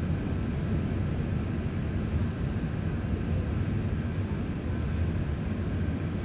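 Cabin noise inside an Airbus A380-842 climbing after takeoff: the steady low rumble of its Rolls-Royce Trent 970 engines and the rush of air past the fuselage, heard from a window seat over the wing.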